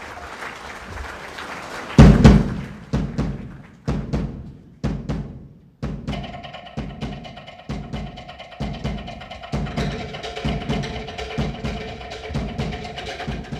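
Drum percussion: one loud hit about two seconds in, then a run of strikes that thins out. From about six seconds a steady beat of roughly two strikes a second plays under held tones.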